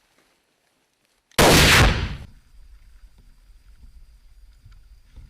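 An 81 mm mortar firing a single round: one sudden loud blast about a second and a half in, followed by a low rumble that slowly fades.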